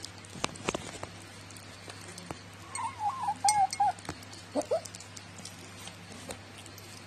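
Cat eating from a ceramic bowl and making its 'talking' vocalizations as it eats: a wavering, warbling mutter lasting about a second, then a short rising cry. Small clicks of chewing and contact with the bowl run through it.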